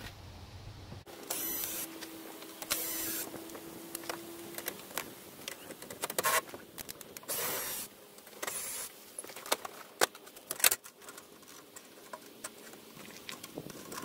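Cordless drill-driver run in several short bursts of about half a second, each with a high whine, backing out the screws and bolt that hold the lower dash panel, with clicks and knocks of plastic trim being handled between them.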